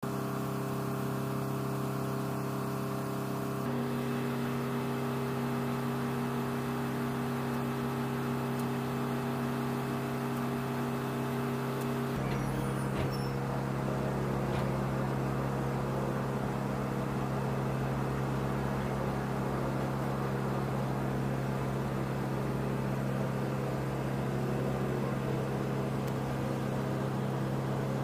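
Steady engine drone on an airfield flight line: a strong low hum with several steady tones over it. Its mix changes abruptly twice, about 4 and 12 seconds in.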